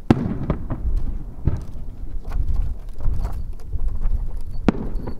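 Aerial firework shells bursting: a loud boom at the start, another about a second and a half in and a sharp one near the end, with smaller bangs between and a continuous low rumble of echoes.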